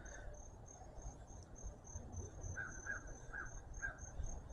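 Insect chirping outdoors: a faint, high-pitched steady pulse, about three chirps a second, typical of a cricket. Four short lower chirps come in just past the middle.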